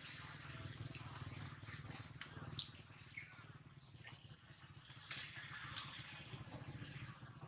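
Repeated short, high-pitched squeaks that rise in pitch, one or two a second, over a steady low background hum.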